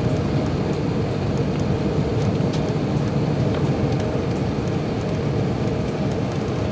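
Steady cabin noise inside an Airbus A380 on approach to landing: an even rush of airflow and engine noise, with a few faint ticks over it.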